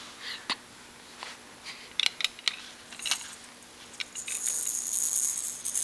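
Baby's toy rattle, a clear plastic ball with loose beads in a blue ring, shaken by hand: a few separate clicks and clatters at first, then about four seconds in it is shaken continuously into a steady, bright, high-pitched rattle.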